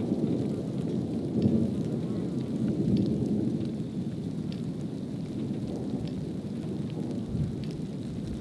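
Constant hail roar from a supercell's hail core: a steady, low rumbling noise without breaks, a little louder in the first few seconds, then easing slightly.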